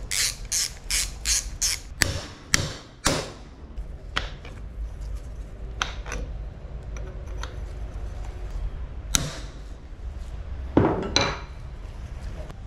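Hammer taps on a mountain-bike suspension fork in a workshop service. A quick run of about six strikes at roughly three a second, then three heavier blows, then scattered clinks of tools and parts, with a louder clattering knock near the end.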